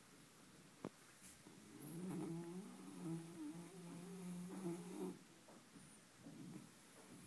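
Shiba Inu snoring in deep sleep: rough raspy breaths, with one long snore held at a steady pitch from about two seconds in to about five seconds.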